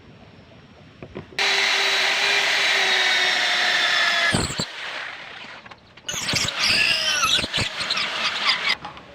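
A handheld power tool used in knife making runs in two bursts. The first is steady, with a few slightly falling tones. The second squeals with a wavering pitch, as the tool works against the metal.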